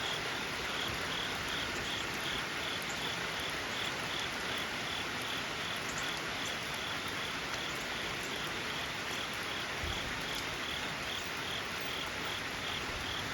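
Steady rain falling, with insects chirping in a quick even pulse, about three chirps a second, that fades after the first few seconds.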